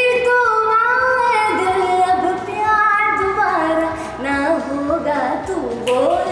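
A woman singing slow, held notes that slide from pitch to pitch, over music.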